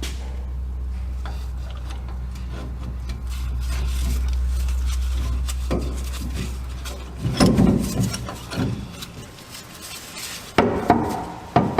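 A steady low hum for about seven seconds, then irregular knocks and clinks of hard parts being handled and set down.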